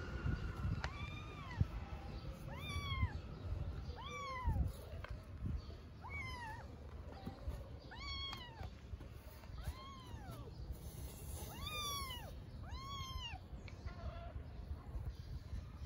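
Cat meowing repeatedly: about ten short, high, arched meows, one every second or so.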